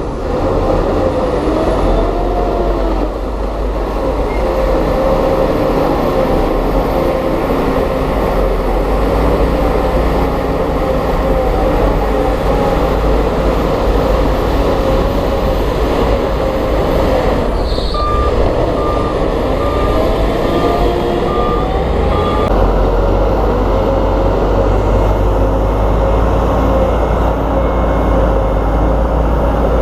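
Heavy earthmoving machinery's diesel engines running steadily under load, with a reversing alarm beeping in even pulses for a few seconds past the middle and more faintly near the end.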